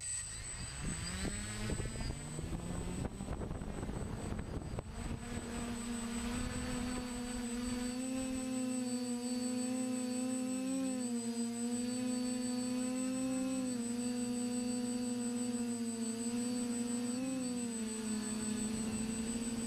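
TBS Discovery quadcopter's motors and 9.5-inch Graupner propellers spooling up as it lifts off, rising in pitch over the first couple of seconds with a noisy rush of air. It then settles into a steady hum, picked up by the onboard GoPro, that dips briefly in pitch a few times. A thin high whine holds steady throughout.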